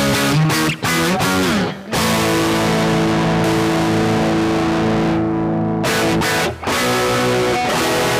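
Electric guitar played through an overdriven tone: a quick run of picked notes with one note bent up and back, then a chord left ringing for about four seconds, a brief break, and a second held chord.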